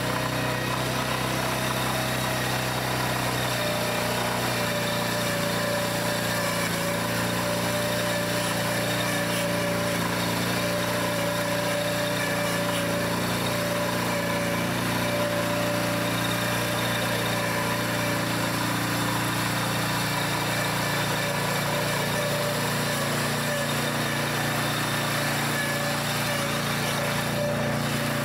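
All-terrain vehicle's small engine running steadily at a constant speed, with no revving.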